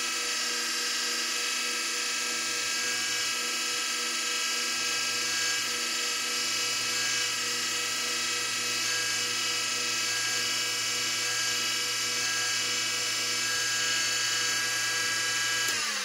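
Wood lathe motor running at high speed with a steady whine of many even tones, spinning a pen blank while wax polish is buffed on. The motor is switched off at the very end and the sound drops away.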